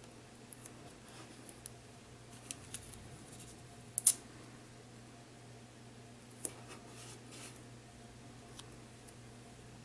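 Tape and foil sheets being handled on a cutting mat: faint rustles and small clicks, with a short sharp crackle about four seconds in and a smaller one about six and a half seconds in.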